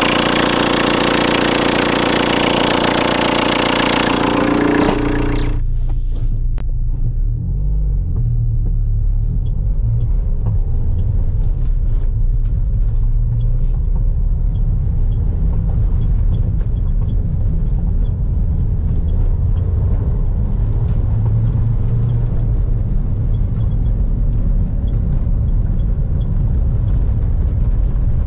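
2000 Renault Kangoo's 1.9-litre diesel engine running, loud and close up in the engine bay for about the first five seconds. It then cuts to a steady low rumble of the engine and tyres heard from inside the cab as the van drives along a dirt track.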